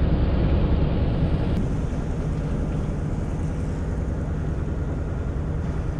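Steady low rumble of a passenger ferry under way at sea: engine drone mixed with wind and water noise.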